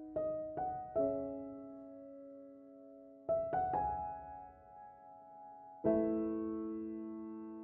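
Background piano music, slow and soft: a few single notes that ring out and fade, a quick group of notes about three seconds in, and a chord near the end that is left to ring.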